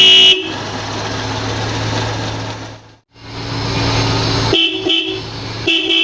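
A pair of Seger pressure horns, one low-pitched and one high-pitched, sounding together in short honks: one at the start, then a quick double honk a little past halfway and a longer honk near the end. Between the honks a steady low hum, which drops out briefly near the middle.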